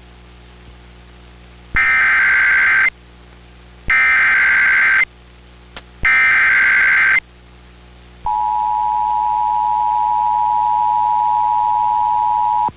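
Emergency Alert System broadcast: three identical bursts of SAME header data, a harsh digital warble about a second long each, repeated at even two-second spacing, followed by the EAS two-tone attention signal (853 and 960 Hz together), a steady dual tone held for about four and a half seconds.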